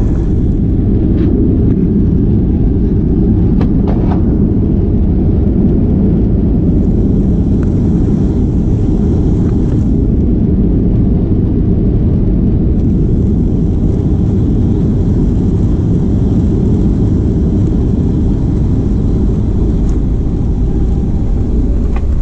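Steady, loud, low rumble inside the cabin of a Boeing 737: engine and rolling noise as the airliner moves along the runway after landing.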